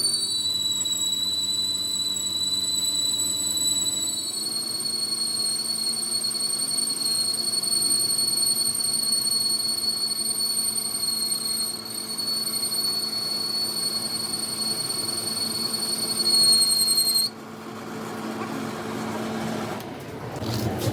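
A workshop machine running with a steady high-pitched whine. It drops slightly in pitch at the start and rises again about four seconds in, then cuts off suddenly near the end, leaving a rougher, noisier sound.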